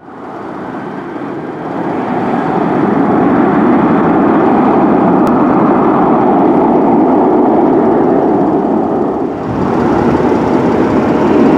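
Boeing 737-700 jet engines (CFM56-7B turbofans) running as the airliner taxis, a steady noise that fades in over the first couple of seconds. After a brief dip about nine seconds in, it comes back louder and brighter.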